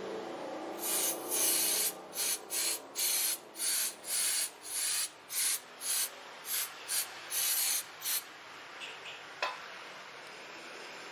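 Aerosol brake cleaner sprayed onto a disc brake caliper and rotor in a quick series of short hissing bursts, about a dozen of them, stopping about eight seconds in. A single sharp click follows.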